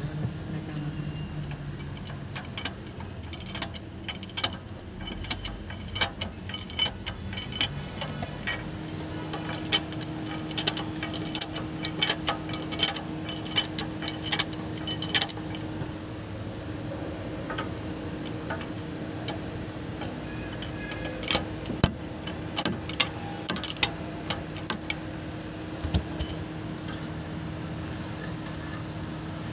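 Irregular metallic clicks and clinks of hand tools as the spark plugs are unscrewed from the engine, over a steady low hum.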